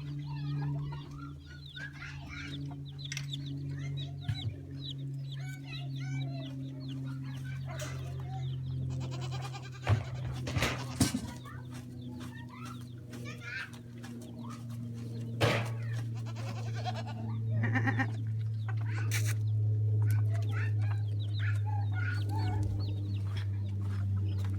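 Chickens clucking over a steady low hum, with a few sharp knocks partway through.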